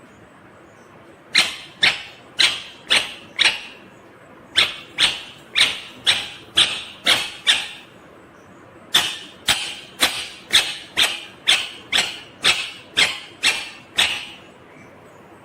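Indian ringneck parrot giving sharp, harsh squawks in three runs, about two calls a second: five, then eight, then about a dozen.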